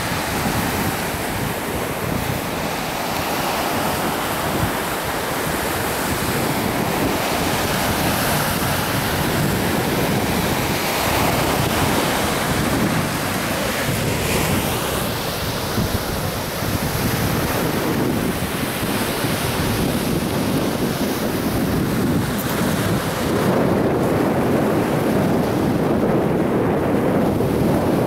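Wind buffeting the microphone over surf on a beach: a steady rushing noise that swells and eases.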